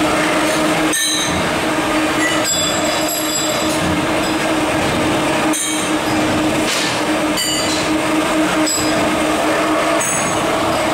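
Workshop machinery running: the electric motors of drilling and tapping machines give a steady hum, broken about six times at irregular intervals by short, high metallic rings and squeals of steel forgings being machined and knocking together.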